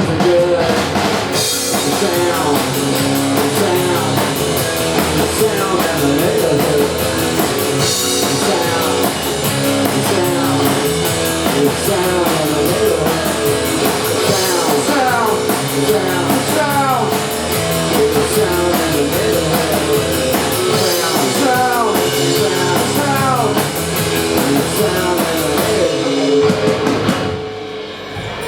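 A live rock band playing loudly with electric guitar and drum kit, the song coming to its end about a second before the close.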